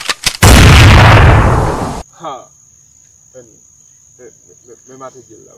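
Crickets chirping with a steady high trill. At the start there are a few sharp clicks, then about half a second in a very loud blast of noise lasts about a second and a half and cuts off abruptly.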